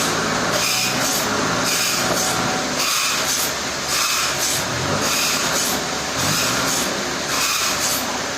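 Sawmill machinery running steadily: a low engine hum under a loud hiss that pulses about twice a second, with the engine pitch rising briefly a couple of times near the middle.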